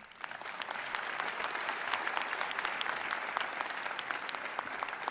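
Audience applauding: a dense, steady patter of many hands clapping that fades gradually toward the end.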